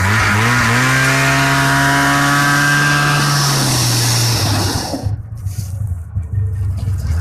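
A vehicle engine revs up in the first second, holds a steady high pitch for about three seconds, then drops off and goes quieter and rougher around five seconds in, picking up again at the very end.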